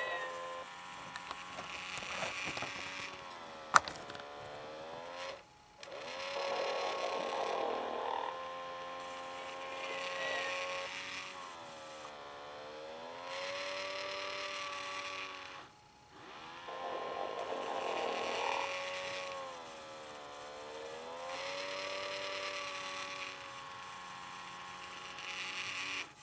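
Sleep & Snore Ernie toy playing its recorded snoring: a slow cycle of pitched snores that bend up and down with rougher, noisier breaths between, repeating about every ten seconds. A single sharp click about four seconds in.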